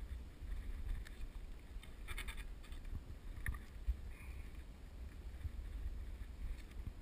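Low wind rumble on the microphone, with a short run of light clicks about two seconds in and one more click a second later.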